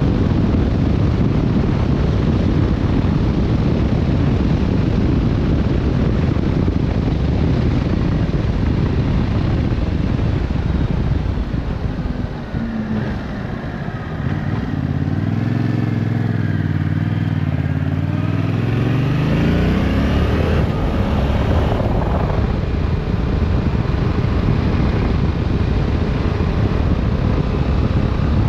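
Yamaha Tracer 7's 689 cc parallel-twin engine running under heavy wind rush while riding. About halfway through the wind drops as the bike slows and the engine note comes through clearly, then the pitch rises as it accelerates and the wind rush builds again.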